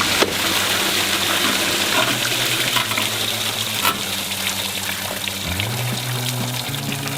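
Water running into a washing machine: a steady rushing hiss.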